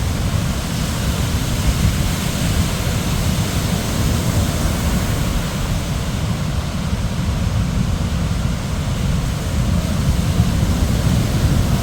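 Wind buffeting the microphone over the wash of sea waves: a steady, loud noise, heaviest in the low range, with no engine note.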